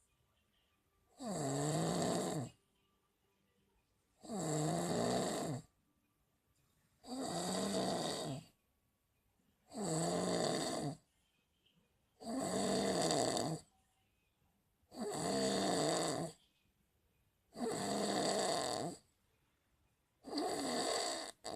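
Steady rhythmic snoring: eight long snores, one about every three seconds, each with a low, wavering pitch and quiet breathing pauses between.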